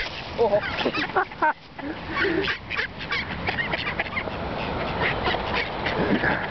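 A flock of mallards quacking in many short, overlapping calls as they crowd in to be fed.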